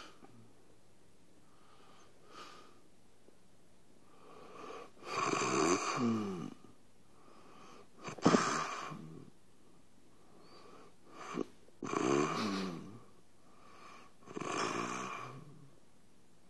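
A man snoring in his sleep: four loud snores about three seconds apart, each with a wavering pitch, after a few fainter breaths in the first seconds.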